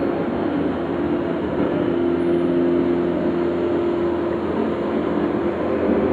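Domestic cat purring right against the microphone, a steady deep rumble.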